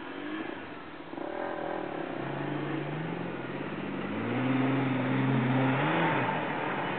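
Lifted Jeep's engine revving under load as it climbs a steep dirt slope. The pitch rises in steps from about two seconds in, is loudest around five to six seconds in, then drops back.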